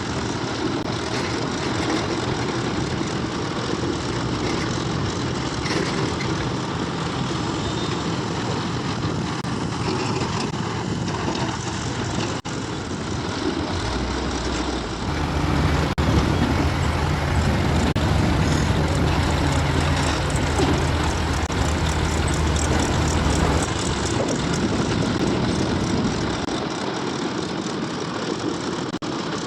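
Heavy diesel machinery running steadily: a JCB 3DX backhoe loader and tractors at work loading mud. The engine sound changes abruptly a few times; from about halfway through until a little past two-thirds it is louder, with a deeper, steady hum.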